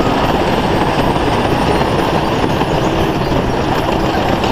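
Wooden roller coaster train running along its track, a loud, steady noise of the wheels on the wooden track.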